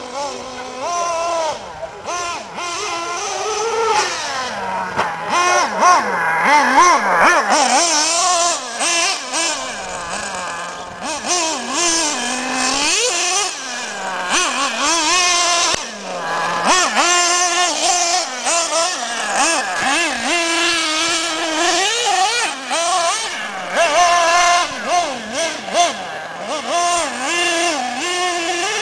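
Nitro glow engine of a 1/8-scale Mugen MBX5T RC truggy, a high buzzing note that revs up and drops back again and again, every second or two, as the throttle is worked on and off.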